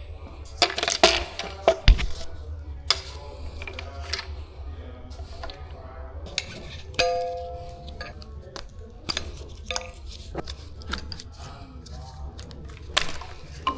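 Metal tools and engine parts clinking and tapping as they are handled, a scattered run of sharp clicks over a steady low hum, with a short steady tone about seven seconds in.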